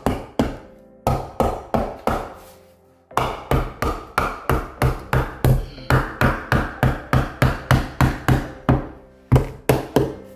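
Claw hammer striking a tight-fitting wooden 2x4 block between wall studs, knocking it into place. A few blows, a short pause, then a steady run of about three blows a second, and a few more near the end.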